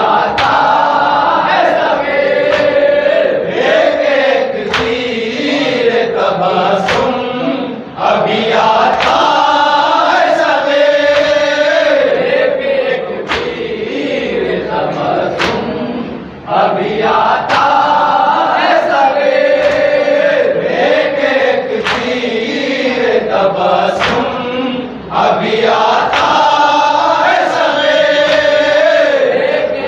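Men's group chanting an Urdu mourning recitation (tarahi salam) in unison, in repeating phrases about eight seconds long. Sharp beats about once a second, typical of rhythmic chest-beating (matam), run along with the chant.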